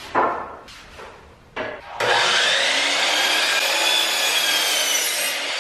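DeWalt sliding compound miter saw starting up about two seconds in and cutting through a wooden trim board, its motor running steady with a high whine.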